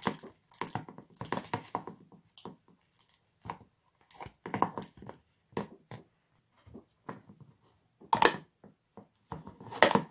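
Metal spoon stirring thick glue-and-cornstarch slime in a plastic bowl: irregular scrapes and knocks against the bowl, with two louder strokes near the end.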